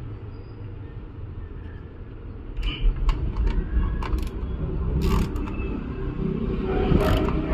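A handful of sharp clicks and knocks from hand work on a motorcycle's front brake, spread over a few seconds from about two and a half seconds in, over a steady low rumble.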